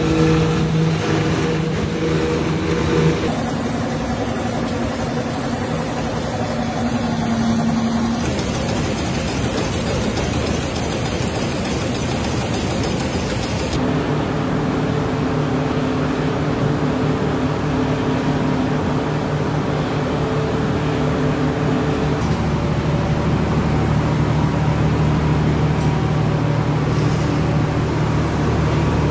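Tapioca-pearl (sabudana) processing machinery running with a loud, steady hum, its pitch and character changing abruptly about four times as different machines take over.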